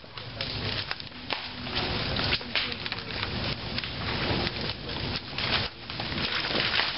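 Wood cracking and splintering in irregular bursts, about once or twice a second.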